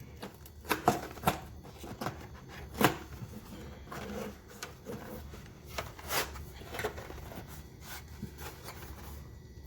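A cardboard product box and its packaging being handled and opened by hand: irregular rustling and scraping, with several sharp taps and clicks.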